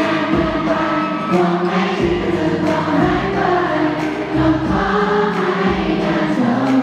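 Live pop song: two male singers singing into handheld microphones over an amplified backing track, with many voices singing together.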